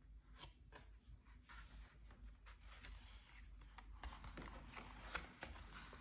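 Faint taps and light rustles of a thick cardboard board book being handled: a lift-the-flap closed and a stiff page turned.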